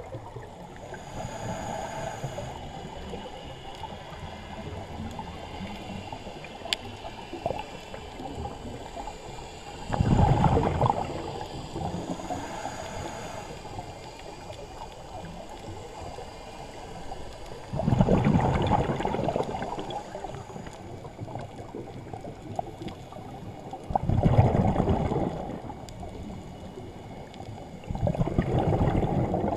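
Scuba diver breathing through a regulator underwater: exhaled bubbles rumble out in four bursts of about one and a half to two seconds each, and a fainter hiss comes twice in between.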